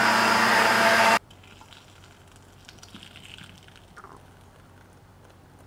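High-powered blender running at full speed on a hot sauce purée, with a steady whine, then cutting off abruptly about a second in. After that comes faint pouring of the thick sauce from the blender jar into a glass bottle.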